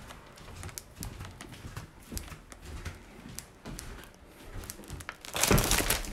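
Light footsteps and scattered handling clicks and knocks as a phone camera is carried through the house, then a loud crinkling rustle lasting under a second near the end.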